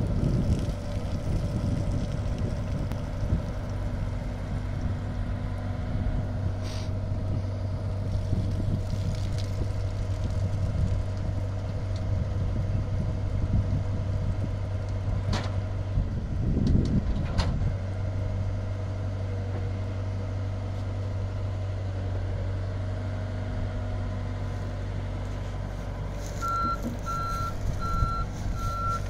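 Komatsu mini excavator's diesel engine running steadily, with a couple of sharp clanks about halfway through. Near the end its travel alarm starts beeping, about two beeps a second, as the machine moves to come off the trailer.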